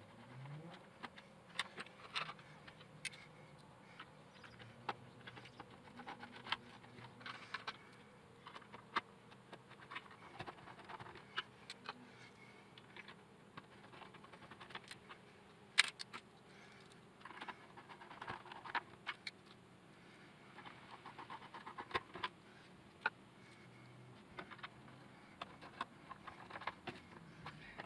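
Faint handling sounds as the robot vacuum's plastic parts and screws are fitted back together: scattered clicks, taps and scrapes, with one sharper click about midway.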